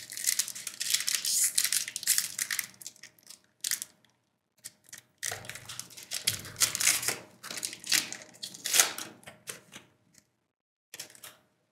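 Foil trading-card booster pack wrapper being torn open and crinkled by hand, in two long spells of crackling with a short pause between them and a brief rustle near the end.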